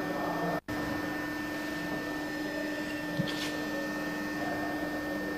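Steady machine hum with an even whir, cutting out for an instant about half a second in. A soft knock and a short hiss follow a little after three seconds in.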